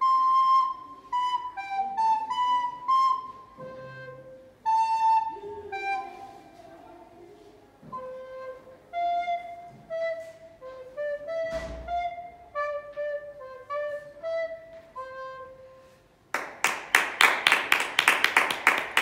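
A flute plays a slow solo melody of single held notes. About sixteen seconds in, quick, loud clapping takes over.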